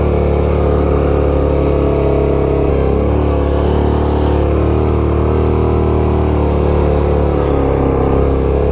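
Yamaha Grizzly 700 ATV's single-cylinder four-stroke engine running at a steady, even pitch, wavering slightly a few times.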